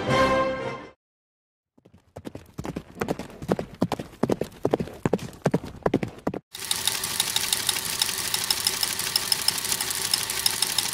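Horse hooves clip-clopping as a run of irregular sharp knocks, then giving way about six seconds in to a steady, dense clatter.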